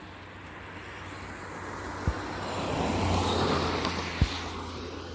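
A passing car, its noise swelling to a peak about three seconds in and then fading, over a steady low hum. Two short dull thumps come about two and four seconds in.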